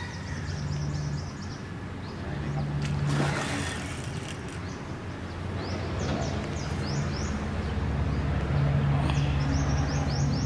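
A steady low motor hum, swelling in the second half, under runs of short, high, falling bird chirps. A brief rush of noise about three seconds in, likely the hooked snakehead splashing at the surface.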